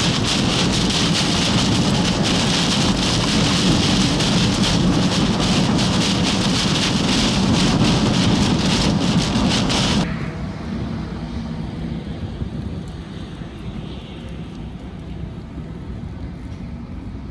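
Heavy rain pelting the windshield and roof of a moving vehicle, a dense hiss with fine rapid ticks over a low road rumble. About ten seconds in it cuts off suddenly to a quieter, steady outdoor background with some wind.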